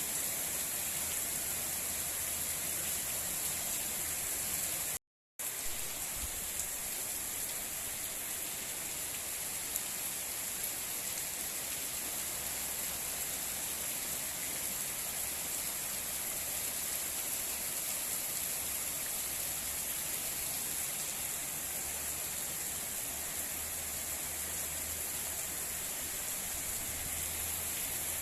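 Heavy rain falling steadily, an even dense hiss. The sound cuts out for a moment about five seconds in.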